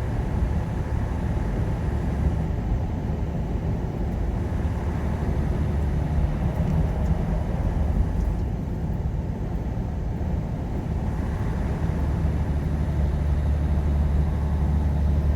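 Semi truck's diesel engine running steadily with road and tyre noise, heard from inside the cab; the low engine hum grows stronger in the last few seconds.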